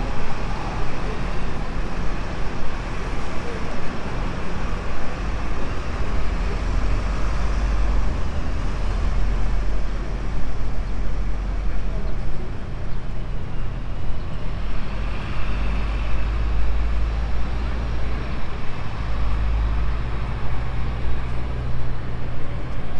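Busy city street ambience: a steady low rumble of road traffic, with passers-by talking in the background.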